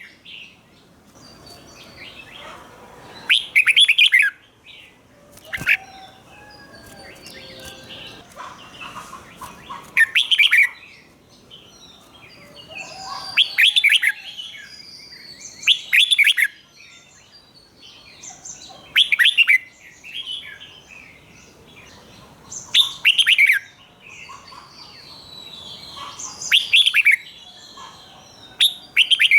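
Red-whiskered bulbul singing: short, loud, chirpy song phrases every two to four seconds, with quieter twittering between them.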